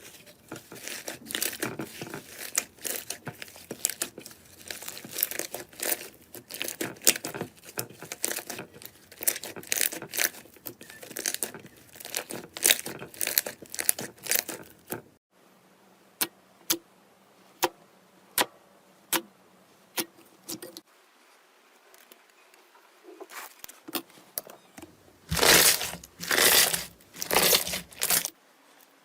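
Slime being handled, crackling and popping. For about the first half the pops come thick and fast; then single sharp pops come about one a second, and near the end there are a few louder, longer bursts.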